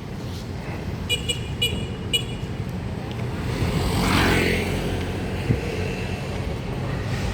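Street traffic: a vehicle passes close about four seconds in, its noise swelling and fading over a steady low engine rumble. Before it, about a second in, a horn gives four quick high-pitched beeps.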